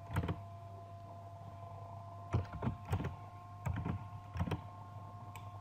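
About eight separate clicks of computer keys, spread unevenly and bunched in the middle of the stretch, over a faint steady electrical hum.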